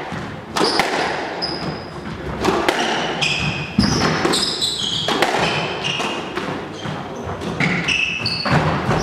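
Squash rally: the ball struck by rackets and hitting the walls about once a second or so, each hit echoing in the court, with many short shoe squeaks on the wooden floor between the shots.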